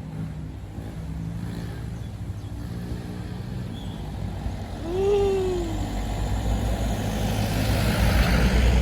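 Heavy truck's diesel engine labouring uphill, growing steadily louder as it approaches. About five seconds in, a brief tone rises and falls in pitch.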